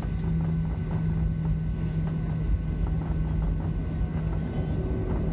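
Jet airliner cabin noise from a window seat over the wing while taxiing: the engines make a steady drone over a constant low rumble, with a few faint clicks.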